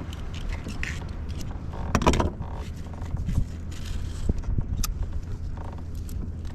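Irregular clicks, knocks and scrapes of gear and a fish being handled aboard a plastic fishing kayak, with a louder clatter about two seconds in.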